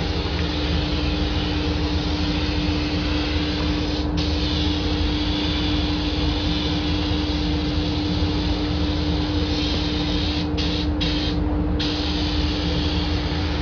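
Compressed-air gravity-feed spray gun hissing as paint is sprayed, its hiss stopping briefly about four seconds in and a few times near the end. Under it the spray booth's extraction fan runs with a steady drone and hum.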